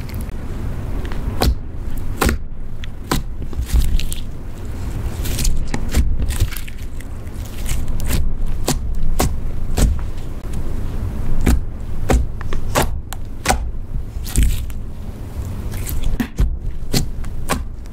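Hands kneading, folding and pressing a clear slime mixed with eyeshadow and lipstick, giving irregular sharp clicks and squelches as it is worked.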